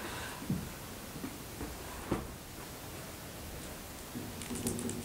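Laptop keyboard keys being tapped: a few scattered clicks, then a quicker run of taps near the end. A faint steady hum joins about four seconds in.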